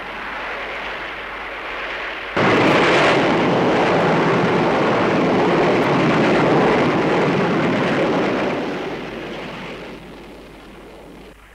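Film sound effect of a missile's rocket engine firing after a countdown: a steady rushing noise that jumps much louder about two seconds in, holds, then fades and drops away near the end.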